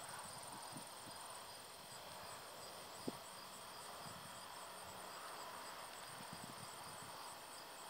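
Insects chirping in a high, even, rapid pulse, faint over steady outdoor background hiss; a single sharp tap about three seconds in.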